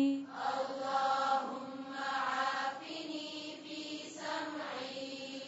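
Soft vocal chanting, a held pitched voice much quieter than the recitation around it, in a longer phrase through the first half and a short one near the end.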